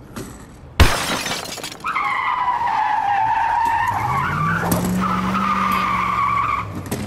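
A sudden loud crash about a second in, then a long high tyre screech with an engine note rising underneath it from about four seconds in, stopping shortly before the end: monster-truck crash and skid sound effects.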